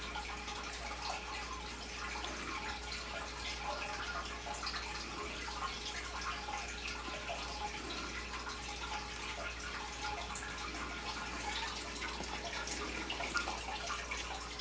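Steady trickling and dripping of water, many small ticks over a soft hiss, with a faint steady hum beneath.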